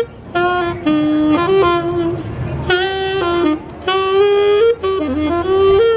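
Solo saxophone played live, a melodic line of held and sliding notes in short phrases, with brief breaks for breath between them.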